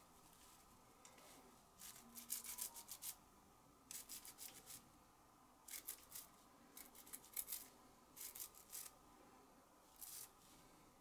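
Quick scrubbing strokes on a small lighter valve part as it is cleaned, coming in about six short bursts of rapid rubbing.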